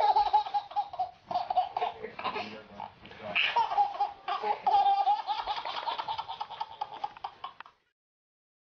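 A baby laughing hard in repeated bursts of high-pitched belly laughter, which cut off suddenly near the end.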